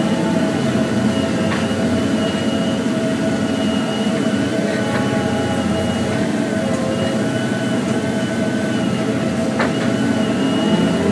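Volvo 3329FM feller buncher's diesel engine and hydraulics running steadily under load, with a whine over the engine drone that shifts slightly in pitch as the felling head is worked. Two short, sharp knocks stand out, one a second and a half in and one near the end.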